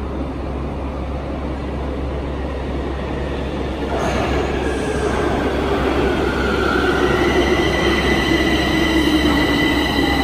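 Bucharest Metro train approaching on the track, growing gradually louder, with a whine that falls slowly in pitch from about four seconds in, typical of a train slowing. A steady high squeal joins it near seven seconds in.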